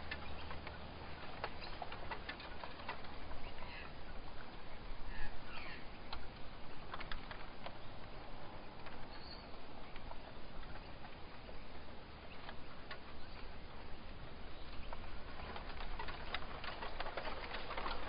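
Forest ambience: a steady soft hiss with scattered light ticks and patter, and a few faint bird chirps a few seconds in.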